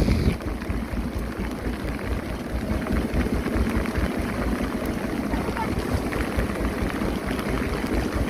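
Heavy rain falling on the sea and an open fishing boat, a steady hiss, with wind buffeting the microphone.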